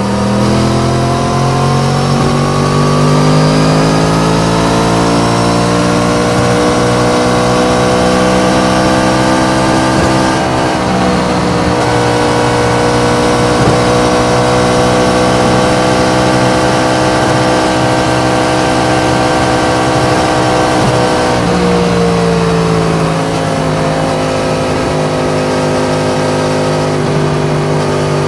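Yamaha MT-10's crossplane inline-four engine pulling at speed, with wind rush. The pitch climbs over the first few seconds, dips briefly about ten seconds in, then holds high. About twenty-one seconds in it drops as the throttle closes and settles lower.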